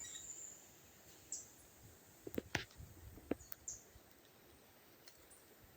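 Quiet outdoor ambience: a high insect tone fades out in the first half second, then a few faint, scattered clicks and brief high chirps.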